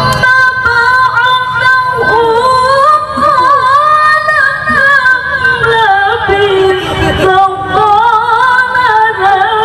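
A woman reciting the Qur'an in melodic tilawah style through a microphone, holding long, ornamented phrases that waver up and down. The line steps down to a lower pitch about two-thirds of the way through.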